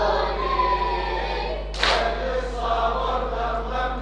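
Latmiya congregation chanting in unison, with a single sharp collective chest-beat strike of matam about two seconds in.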